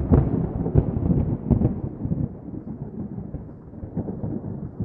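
Thunder: a sudden loud clap that breaks into several sharp cracks over the first two seconds, then a low rolling rumble that slowly fades.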